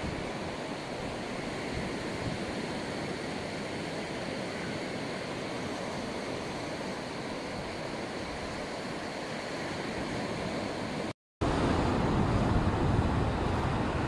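Ocean surf washing onto a sandy beach, a steady rush. After a brief cut-out about eleven seconds in, it comes back louder, with wind buffeting the microphone.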